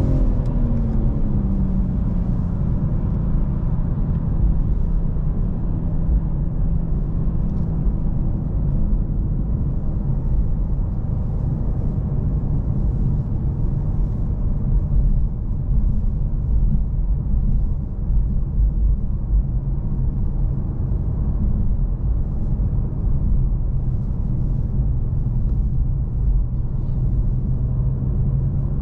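BMW 840i's turbocharged inline-six and tyres heard from inside the cabin: the engine note falls away in the first couple of seconds as the car lifts off and slows, then a steady low rumble of engine and road noise continues while it cruises at lower speed.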